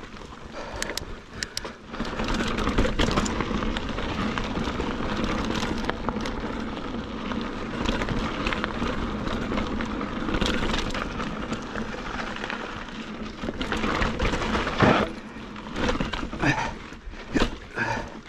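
Mountain bike rolling over a loose dirt and rock trail: a steady rush of tyre noise and wind, with rattles and clicks from the bike over small rocks, and several sharper knocks near the end as it crosses rockier ground.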